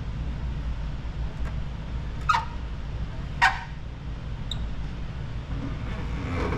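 Low steady background hum, with two short squeaks about a second apart near the middle, typical of a squeegee dragged over wet paint protection film on a car fender.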